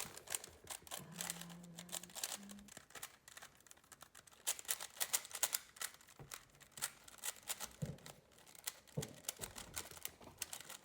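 3x3 Rubik's speed cube being turned rapidly during a solve: a fast, uneven run of light plastic clicks and clacks as the layers snap round.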